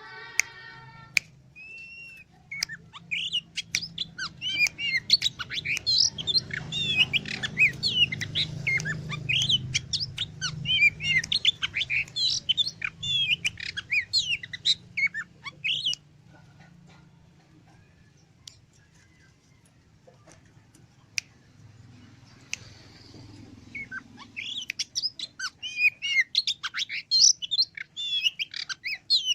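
Oriental magpie-robin (kacer) singing a rapid, varied stream of loud chirps, whistles and harsh notes. It breaks off for several seconds about halfway through and starts again strongly near the end. A faint low hum runs beneath.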